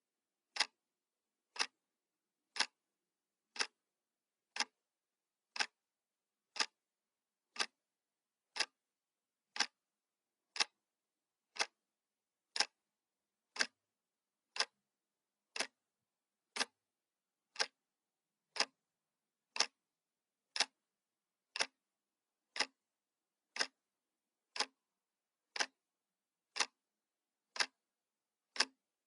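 Clock ticking sound effect: short, sharp single ticks, one every second, evenly spaced with silence between.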